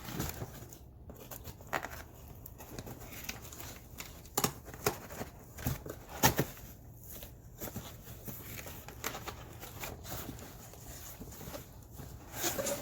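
Cardboard box being opened and unpacked by hand: scattered knocks, scrapes and rustling of cardboard and packing, with the sharpest knocks a little before and after the middle.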